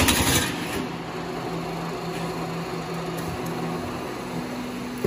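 Trapezoidal roofing-sheet roll forming machine running steadily: the motor and chain-driven forming rollers hum as a steel roofing sheet feeds through. There is a brief louder rush of noise right at the start.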